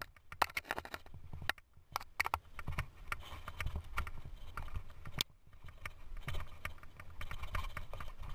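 Mountain bike clattering over a bumpy dirt singletrack: irregular sharp knocks and rattles from the bike, several a second, over a low rumble of the tyres rolling.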